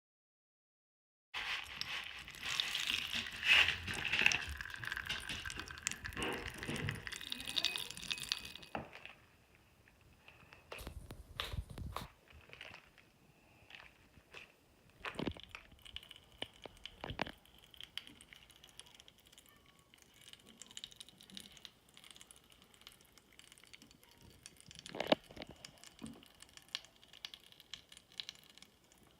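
Bath crackles crackling: a dense run of crackling starting about a second and a half in and lasting about seven seconds, then thinning to scattered small pops and clicks, with a sharper click near the end.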